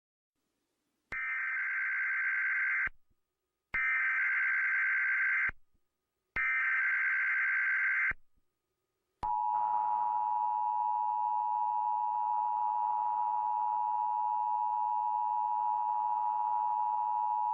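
Emergency Alert System tones: three identical bursts of SAME header data, each about two seconds long with short gaps between them, then the two-tone attention signal, a steady dual tone held for about eight seconds. Together they mark the start of an emergency alert, here a tsunami warning.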